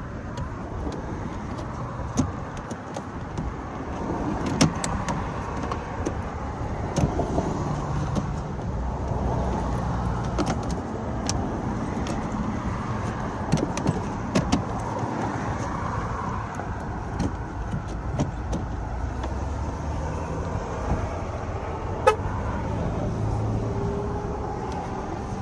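Car trim being worked loose and handled: scattered plastic clicks and knocks, with one sharp snap about three-quarters of the way through, over a steady background of vehicle noise.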